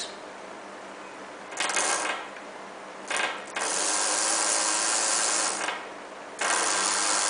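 Small brushed DC motor of an RC car spinning when positive is fed to pin 6 (steer right) of the receiver IC's socket, driven through the car's H-bridge, which shows the H-bridge works. It whirs in two short spells, then runs for about two seconds, stops, and starts again a little before the end.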